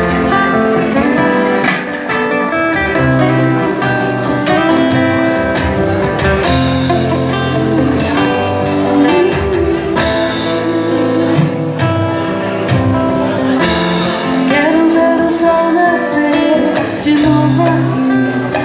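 Live band playing a Brazilian pop song: strummed acoustic guitars with drums, and a woman's singing voice over them.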